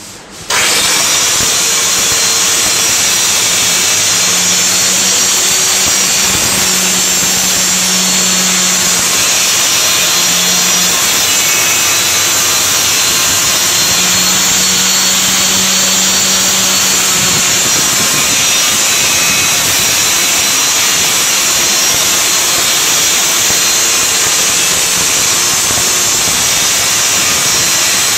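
Handheld marble-cutter-style electric circular saw starting up about half a second in, then running steadily as it cuts a curved arc through a plywood sheet.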